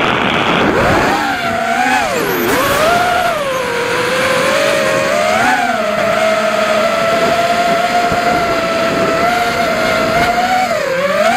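Realacc XS220 FPV racing quadcopter's brushless motors and propellers whining as heard from its onboard camera, the pitch rising and falling with the throttle. The pitch drops sharply and climbs back in the first few seconds, then holds steady, and dips briefly again near the end.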